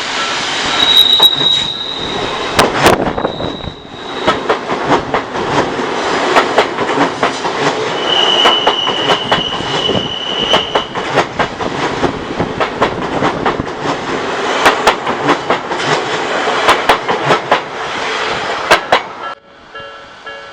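Odakyu Odawara Line train passing close by, its wheels clacking in quick succession over the rail joints, with short high-pitched wheel squeals about a second in and again about eight seconds in. The passing cuts off sharply near the end.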